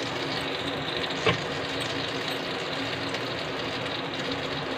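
Gas stove burner running under an empty iron kadhai as it heats, a steady hiss with a faint hum. One light click about a second in.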